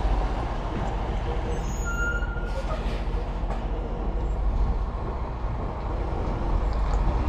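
Semi truck's diesel engine running at low speed while backing a trailer, a steady low rumble. A brief faint squeak sounds about two seconds in.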